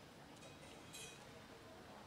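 Near silence: faint background hiss with one small click about a second in.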